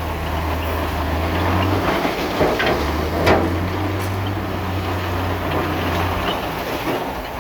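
Bulldozer's diesel engine running steadily with a low drone, with a couple of sharp metallic knocks about halfway through.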